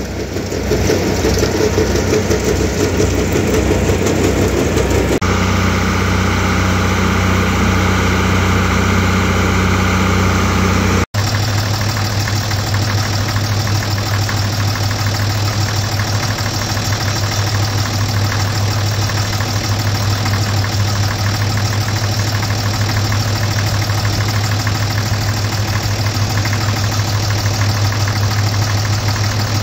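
Pull-type forage chopper running and blowing freshly chopped sorghum-sudangrass into a forage wagon. The sound changes abruptly about five and again about eleven seconds in, after which a farm tractor engine runs steadily at constant speed.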